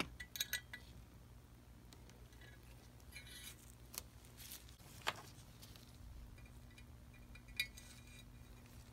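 Light metal clinks and taps of a small spanner and screwdriver working a nut inside a model locomotive's metal smoke box: a quick cluster of clicks at the start, a brief scrape around the middle, and single sharp clicks after it, the loudest about five seconds in, over a faint low hum.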